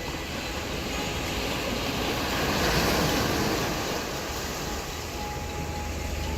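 Sea surf washing onto a beach: a wave swells and breaks about three seconds in, then eases off, over a steady low rumble.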